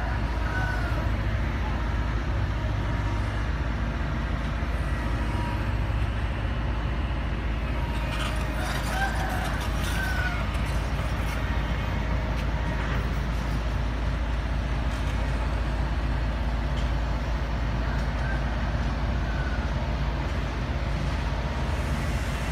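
Heavy diesel engines of cranes and trucks running steadily with a low rumble, with a few light knocks about halfway through.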